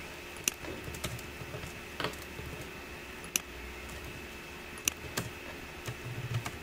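Computer keyboard keys and mouse buttons clicking during code editing: scattered single sharp clicks, a second or more apart, over a faint steady electrical hum.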